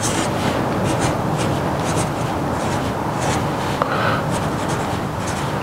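Marker pen writing on a whiteboard: a run of short scratchy strokes, with a brief squeak about four seconds in.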